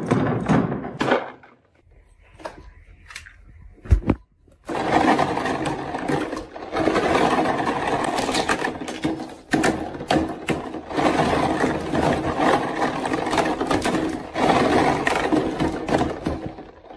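Glass marbles rattle down a carved wooden track for about a second, with a single thud around four seconds in. Then a hand rummages through a tub of red slime in long stretches separated by brief pauses.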